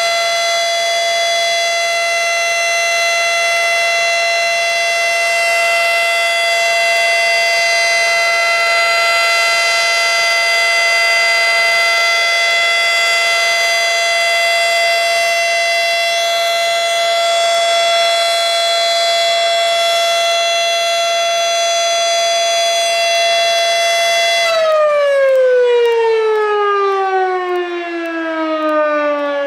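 Federal Signal Model 7 electromechanical outdoor warning siren sounding a loud, steady single tone during a test. About 25 seconds in it begins winding down, its pitch falling smoothly as the rotor slows.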